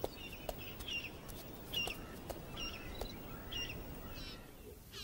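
Several short bird chirps, about one a second, over faint outdoor ambience, with a few faint ticks between them.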